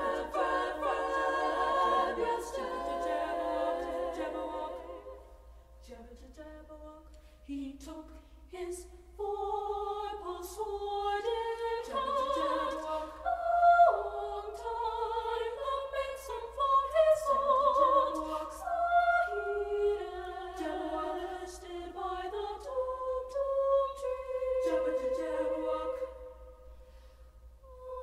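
A women's choir singing a cappella in several parts. A full held chord fades away about five seconds in, then voices re-enter and build into moving melodic lines.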